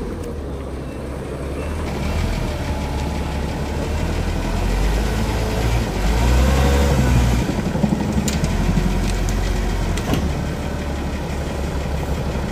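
Forklift engine idling with a steady low hum, running louder for a second or so about halfway through, with a couple of sharp knocks later on.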